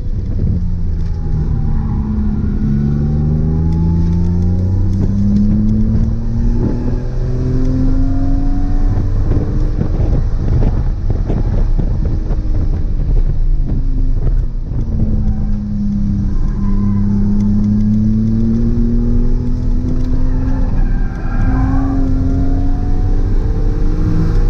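BMW E46 M3's S54 straight-six engine pulling hard through the gears: its pitch climbs over several seconds, drops at each upshift and climbs again, with road and wind noise underneath.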